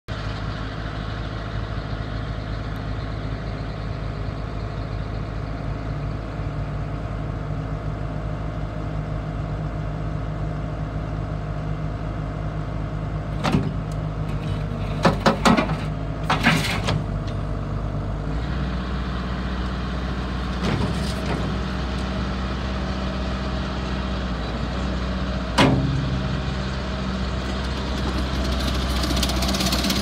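ASV SR80 compact track loader's turbocharged diesel engine idling steadily; its note changes a little over halfway through. A few sharp clanks stand out over the engine.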